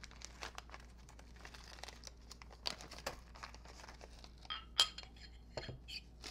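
Small clear plastic bag of bolts and hardware crinkling as it is handled, with scattered light crackles and one sharper click with a short ring about five seconds in.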